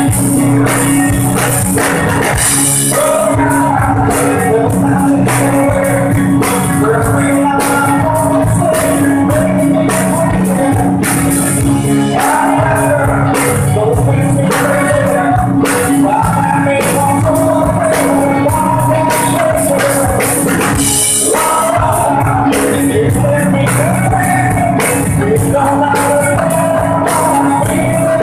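Live rock band playing loudly: electric guitars, a drum kit with busy cymbals, and a male lead singer singing into a microphone.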